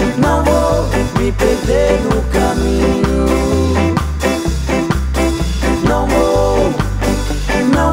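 Ska track with a muted electric bass line: a Fender Jazz Bass played on the two lowest strings, notes stopped with one finger and damped by the others for a short, quick-decay sound like an Ampeg Baby Bass. Other instruments play over the bass.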